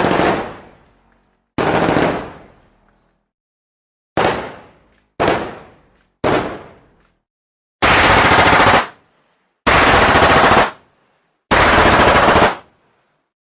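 Gunfire: five single shots, each trailing off over about a second, then three bursts of rapid automatic fire, each lasting about a second.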